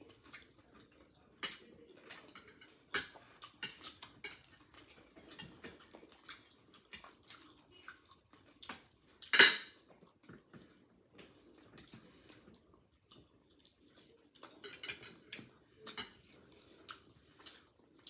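Shells of steamed clams clicking and clattering against each other and the dish as they are picked over while eating, with soft chewing between. One much louder clatter about nine seconds in, and a run of clicks near the end.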